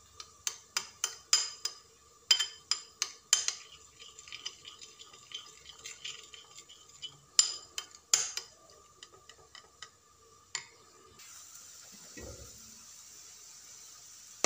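Metal spoon stirring thick sauce in a glass bowl, clinking sharply against the glass in quick runs with softer scrapes in between. For the last few seconds a steady hiss, from grated potato frying in a pan.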